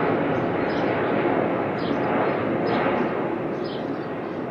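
Jet noise from an Airbus A330-200's Pratt & Whitney PW4000 turbofans as the airliner passes overhead on approach, a steady rush that slowly fades as it moves away. Short bird chirps sound a few times over it.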